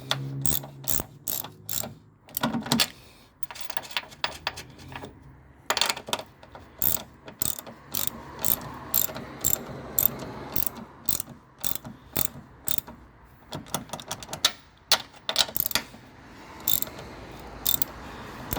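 Hand ratchet wrench clicking in runs with short pauses, as nuts on a car's strut assembly are snugged down but not fully tightened.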